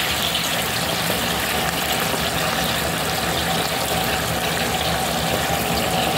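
Sardine and bottle-gourd broth boiling in a wok, a steady bubbling hiss, with a steady low hum underneath.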